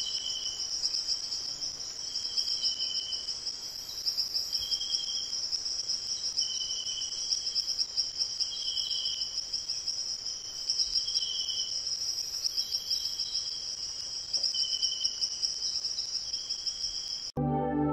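Insect chorus: a steady, high pulsing trill with a lower chirp repeating every second or so. It cuts off suddenly near the end as ambient synthesizer music begins.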